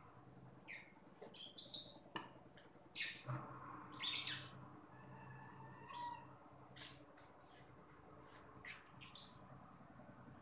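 Close-miked eating sounds: wet mouth smacks, sucking and chewing clicks from someone eating noodles, rice and fried fish. They come as irregular short, sharp bursts, loudest in the first half.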